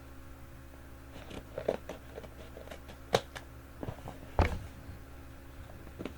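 A cardboard shipping box being handled and opened: scattered rustles and light knocks, with two sharper clicks about three and four and a half seconds in.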